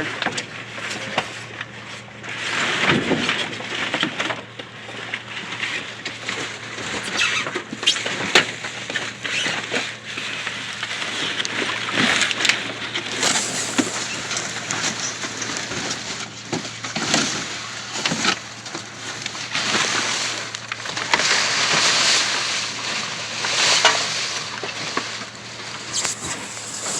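Rummaging through trash in a dumpster: irregular rustling and crinkling of plastic and cardboard with scattered knocks and clatters, over a steady low hum.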